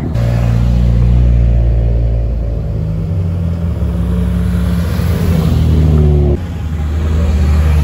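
Cars, among them a white Subaru WRX, driving out of a parking lot past at close range, their engines and exhausts giving a deep, loud note that shifts pitch a few times as they rev and pull away.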